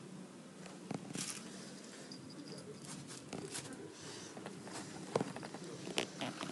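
Faint scattered taps and rustles as a cat paws at a string toy on a cardboard scratcher, with a few sharper clicks about a second in and again near the end.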